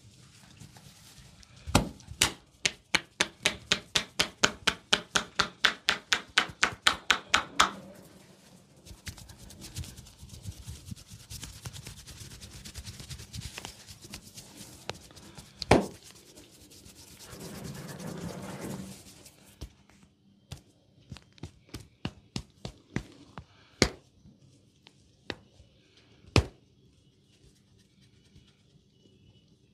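Hands massaging bare skin and hair: a fast, even run of hand strikes on skin at about four a second, then hands rubbing through hair. One loud sharp crack comes about halfway through, followed by scattered light clicks and taps.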